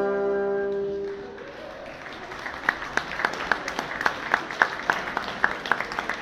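A jazz big band's held final chord rings and dies away in the first second or so. Audience applause follows, with sharp claps close to the microphone coming several times a second.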